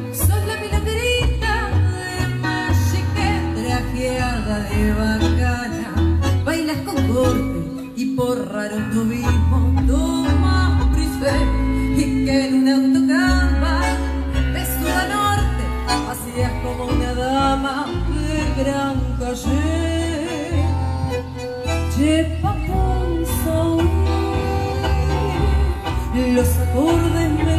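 A tango sextet playing live, amplified, with a woman singing the melody over violin, bandoneon and a steady bass line.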